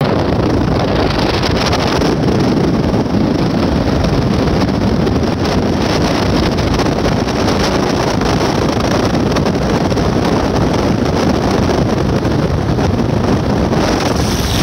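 Steady, loud rush of wind on the microphone from a motorcycle riding at speed, mixed with the motorcycle's engine and road noise.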